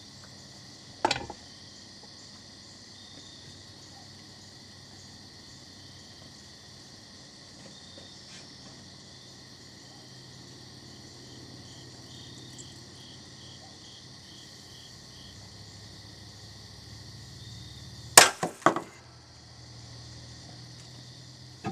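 2024 aluminum airgun air tube, its wall thinned, bursting under pressure test at about 5,000 psi as the end pulls off at the thread root: one sharp bang about 18 seconds in, with a quick second crack right after.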